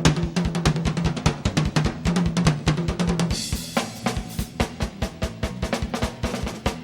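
Live rock band playing, led by a drum kit with rapid, even kick and snare strokes and a cymbal crash about three and a half seconds in, over a held low note.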